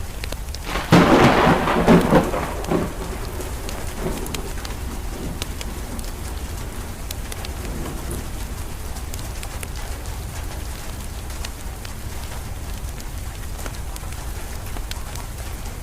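A thunderclap about a second in, loud for a couple of seconds and then rumbling away, over steady rain, with the light crackle of a wood fire.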